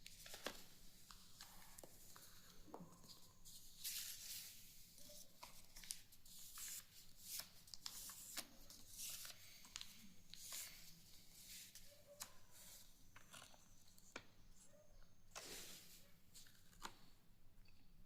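Sheet of paper being handled and folded, rustling and creasing in many short crisp swishes and rubs, a few of them louder strokes.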